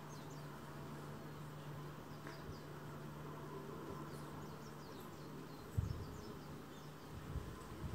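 Quiet outdoor ambience: a faint steady low hum with scattered faint, high, short chirps, and a single soft thump about six seconds in.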